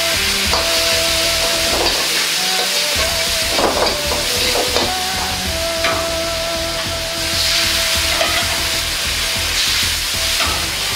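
Ground meat sizzling and frying in a hot carbon-steel wok, with a metal ladle scraping and knocking against the wok now and then.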